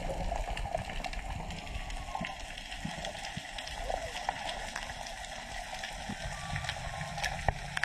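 Underwater sound picked up by a diving camera: a steady hiss and low rumble with many scattered sharp clicks and crackles.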